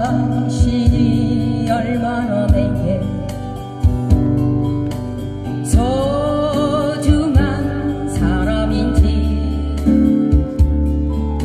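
Amplified live song played through PA speakers: acoustic guitars strummed in a steady rhythm under a woman's singing voice, with sustained bass notes beneath.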